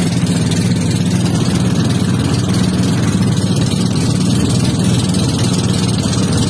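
Engine of a motorized outrigger pump boat running steadily at cruising speed, with wind and water rushing past the hull and outrigger.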